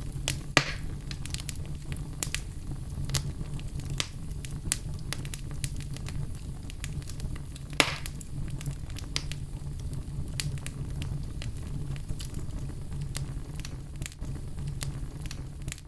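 Wood fire burning in a fireplace: a steady low rumble of the flames with irregular crackles and snaps, two of them sharper, louder pops about half a second and about eight seconds in.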